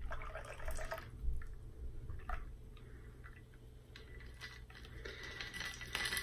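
Faint trickle of a shaken, iced cocktail being strained from a stainless steel cocktail shaker into a martini glass, with a few small drips. It is a little stronger at the start, eases off in the middle and picks up again near the end.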